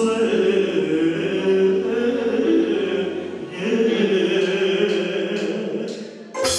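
Chant-like choral singing in long held phrases over a steady low drone. It cuts off abruptly near the end.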